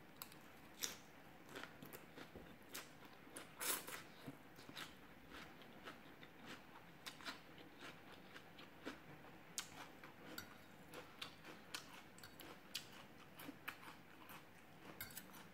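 Quiet close-up eating sounds: chewing and slurping mouthfuls of Thai rice noodles with fresh vegetables, heard as a string of short wet clicks and crunches, with a few louder ones about a second in and around four seconds in.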